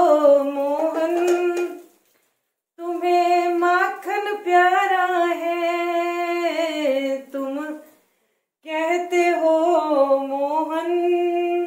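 A woman singing a Hindi Krishna bhajan unaccompanied, in three long phrases of drawn-out, held notes with two short breaths between them.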